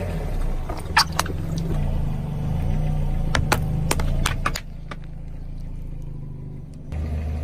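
A car's engine runs at low speed while its tyre rolls over and crushes small plastic objects. Sharp pops and cracks come twice about a second in and four times in quick succession a little past the middle, then only the engine hum is heard.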